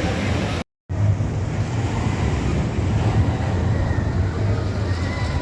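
Roller coaster ride noise: a steady low rumble from the train on the track, with wind on the microphone. The sound cuts out completely for a moment under a second in.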